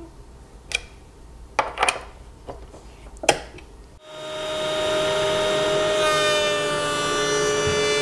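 A few light clicks of the lift key as the router bit is raised, then, about halfway, the table-mounted router runs with a steady whine while its large 45-degree bit bevels the long edge of a board. The pitch dips slightly as the bit takes the cut.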